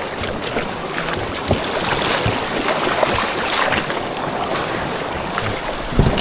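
Swollen river in flood rushing steadily, a continuous noise of fast-moving water.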